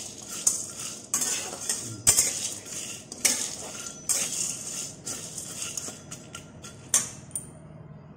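A flat metal spatula scrapes around a metal kadai, stirring roasting mixed pulses, wheat and nuts that rattle against the pan. The strokes come about once a second and stop shortly before the end.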